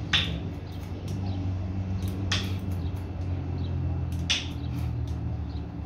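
Barber's scissors snipping through short hair, a few sharp snips about two seconds apart, over a steady low hum.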